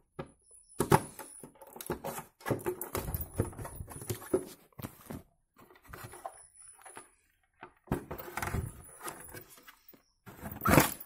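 Key turning in a Bajaj Pulsar 150's seat lock and the seat being worked loose: irregular clicks, knocks and scraping, with a louder scrape near the end.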